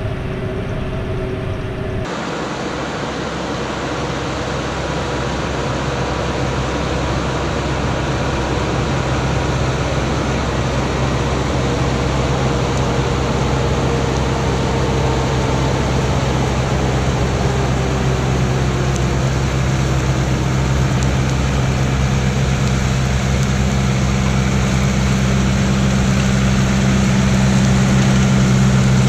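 Tractor engine running while pulling a round baler through a swath of barley straw, a steady mechanical din. A faint whine falls in pitch through the middle, and the engine's low hum grows stronger over the last several seconds.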